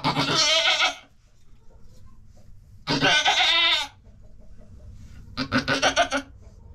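Doe goat in labour bleating loudly three times, each call about a second long, the third broken into quick stuttering pulses: the cries of a doe straining through contractions while delivering a kid.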